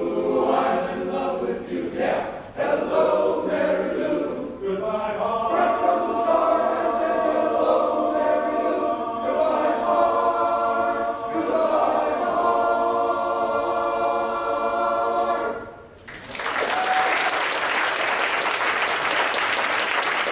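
Men's chorus singing unaccompanied, ending on a long held chord; about sixteen seconds in, the audience breaks into applause.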